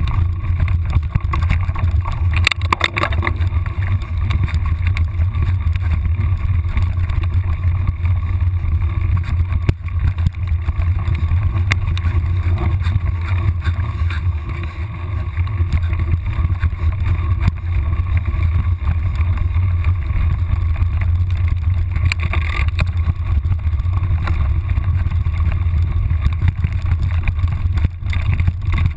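Steady low rumble of wind buffeting and motion noise on a camera microphone moving fast along a forest trail, with scattered rattles and knocks, briefly louder about three seconds in and again near 22 seconds.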